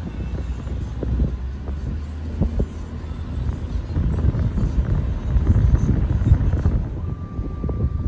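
Low, rough rumble of a car driving, with wind buffeting the microphone. A faint steady high tone comes in near the end.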